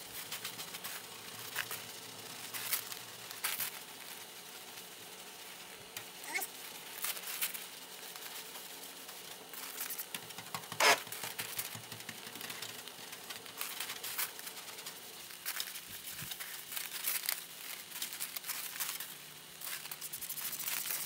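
Faint, irregular crackling and clicking, like something being handled or rustled close by, with a few sharper clicks, over a low steady hum.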